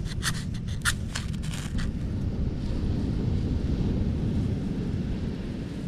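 Dry grass kindling crackling under the hands as a campfire is set and lit, with a few sharp crackles in the first two seconds. A steady low rumble sits under everything and is the loudest sound.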